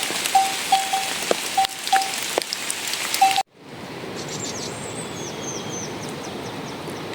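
Outdoor rushing noise with a run of short single-pitch notes and a few clicks, cut off abruptly about three and a half seconds in. Then a steadier, quieter rushing like flowing water, with a few high, falling bird chirps.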